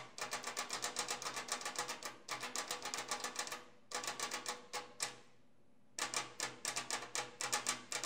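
Spring-return DC print-hammer solenoid from a Hermes daisy-wheel typewriter clicking rapidly in and out as 12 volts is switched to it through the leads, each click the plunger firing out and springing back. The clicks come in quick runs of about nine a second, with short breaks near two and four seconds in and a pause of about a second just past five seconds in.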